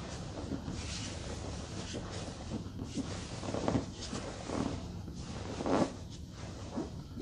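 Movement noise from a jiu-jitsu drill with an exercise ball on a mat: gi fabric rustling and the body and ball shifting against the mat, with several short louder bursts, the loudest about six seconds in.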